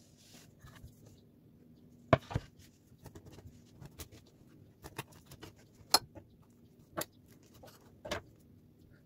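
Kitchen knife cutting through the crisp, sesame-topped crust of a baked filled bread on a wooden board: sharp clicks and crunches about once a second, the loudest pair about two seconds in.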